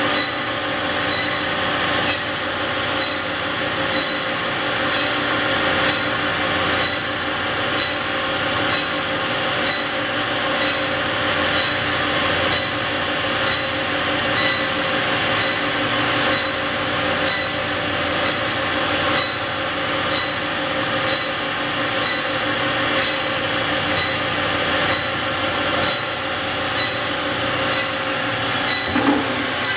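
1994 Doall C305A horizontal bandsaw running, with no coolant in the machine: a steady mechanical hum with a sharp, ringing tick about once a second.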